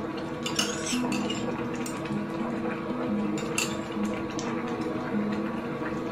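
A metal ladle clinking against a ceramic bowl and a stainless steel pot as calamansi juice is spooned into simmering fish soup. There are a few sharp clinks, about half a second in, at one second, and again around three and a half seconds.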